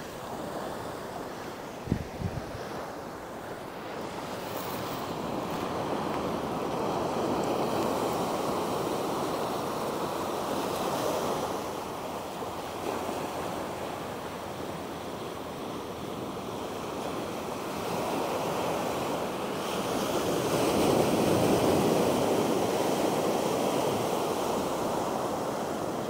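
Small ocean waves breaking and washing up a sandy beach, the surf swelling louder twice, with some wind on the microphone.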